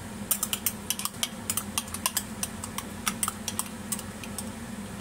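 A metal spoon clicking and tapping against the inside of a mayonnaise jar while scooping mayonnaise out: a quick, irregular run of sharp clicks that stops shortly before the end.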